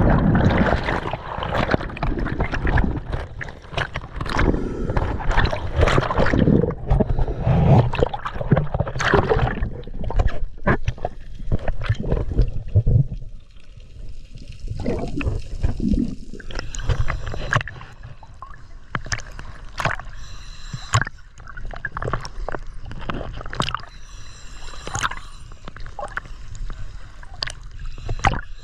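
Sea water churning and bubbling loudly around an action camera as it plunges under. This settles after about ten seconds into quieter underwater gurgling with many scattered sharp clicks and pops, and water sloshes as the camera breaks the surface near the end.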